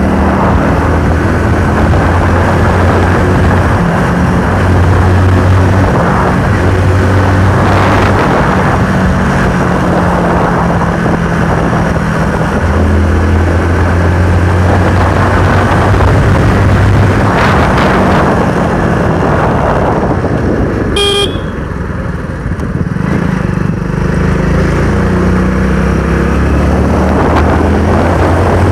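Motorcycle engine running under way from the rider's seat, its note shifting up and down with the throttle. About three quarters through there is a short horn beep, and the engine eases off for a moment before pulling again.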